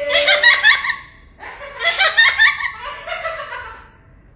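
A bird giving rapid, laughter-like calls in two bouts of quick repeated notes.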